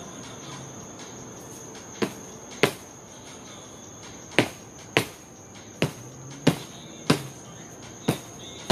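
About nine sharp, ringing knocks on wooden pallet boards, starting about two seconds in and coming every half second to a second, often in pairs. Under them runs the steady high chirring of crickets.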